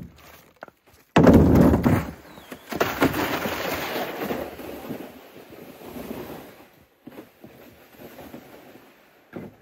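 Plastic sled loaded with wood offcuts being dragged over wet snow: a loud scraping rush that starts suddenly about a second in, then fades over the next few seconds as it moves away.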